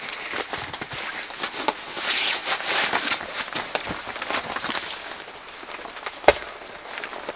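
Nylon fabric of a TomShoo air mattress and its stuff sack rustling and crinkling as the mattress is pulled out and unrolled, busiest about two to three seconds in. A single sharp knock about six seconds in.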